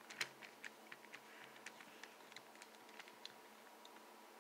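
Faint, irregular light clicks as a Phillips screwdriver turns and loosens the screw in a Master Pyraminx's plastic core.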